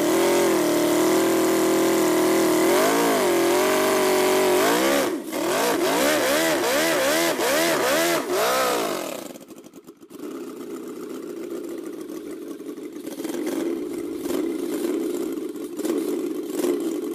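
A scale-model Ferrari V8 engine idles with a steady note, then its throttle is blipped about six times in quick succession, each rev rising and falling. About nine seconds in, the engine note drops out. A quieter, rougher steady running sound follows and cuts off suddenly near the end.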